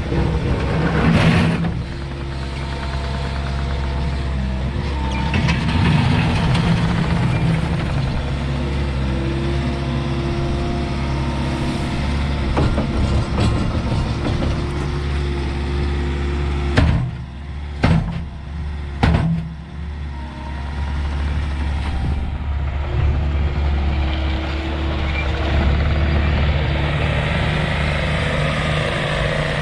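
Bobcat T66 compact track loader's diesel engine running steadily, with three sharp clunks about two-thirds of the way through.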